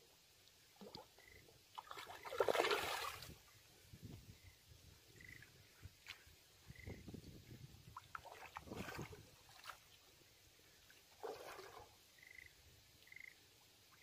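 Water splashing in a few short bursts as a hooked fish thrashes at the surface on the line, the loudest about two and a half seconds in and weaker ones later.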